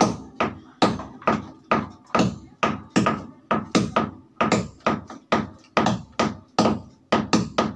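Steady, repeated hammering strikes from building work, about three blows a second.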